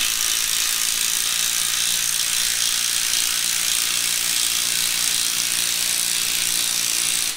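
A power tool running steadily for about seven seconds, driving the centre bolt that draws a stacked leaf spring pack together; it starts and stops abruptly.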